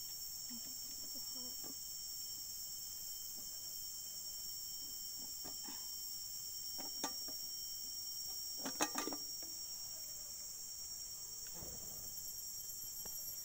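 Steady high-pitched drone of forest insects, with occasional small clicks and snaps from a campfire and the wood being handled over it, a short cluster of sharper snaps about nine seconds in.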